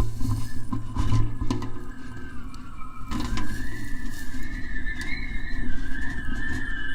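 Kite reel resonator sounding a wavering, whistle-like tone as the kite line pulls on it in the wind; the pitch drifts up and down and steps higher about three seconds in. A low rumble runs underneath.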